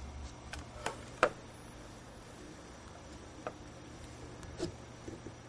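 A few faint, scattered clicks and taps as a finger touches a smartphone's touchscreen, the sharpest about a second in.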